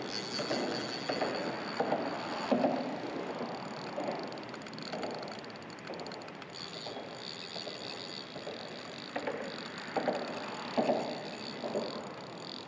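Water slapping and sloshing in irregular bursts, with a fishing reel's rapid ticking for a few seconds in the middle while a fish is on the line.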